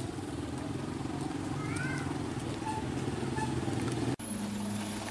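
Small motorcycle engine running with a fast, even pulse, and a short rising-and-falling cry about two seconds in. Just after four seconds the sound drops out for an instant and a steadier engine hum follows.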